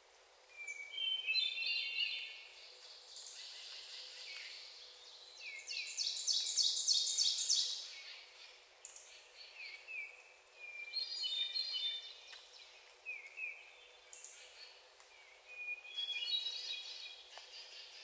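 Hermit thrush singing: phrases every few seconds, each a clear opening whistle rising into a flurry of flute-like notes, sung at different pitches. About six seconds in, another bird's rapid high trill is the loudest sound for about two seconds, and thin high whistles come in between the phrases.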